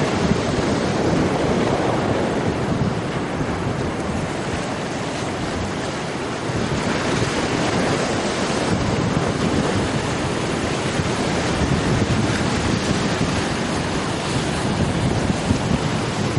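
Ocean surf breaking and washing, with wind buffeting the microphone.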